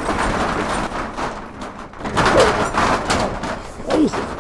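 A violent scuffle: repeated heavy thuds and blows with clothing rustling, and a few short strained cries or grunts.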